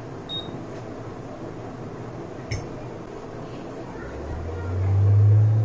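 A single knock of something set down on the bench about halfway, then a hot air rework station's blower starting up near the end: a low hum that steps up in pitch and swells to a steady drone.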